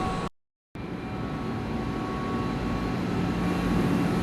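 Gas-fired hot-water boilers running in a boiler room, their burners and draft fans making a steady mechanical hum with a low tone and a fainter higher whine. The sound drops out completely for a moment just after the start, then returns.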